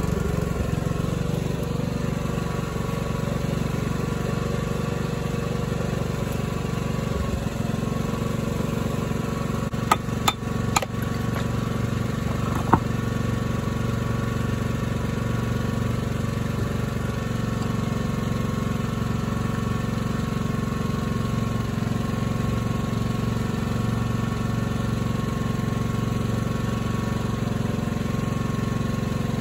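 A small engine running steadily, with a few sharp knocks between about ten and thirteen seconds in.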